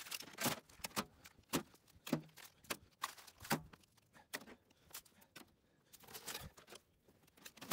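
Irregular clicks, knocks and light clattering of small junk items being picked up and handled while sorting scrap, a quick knock every fraction of a second.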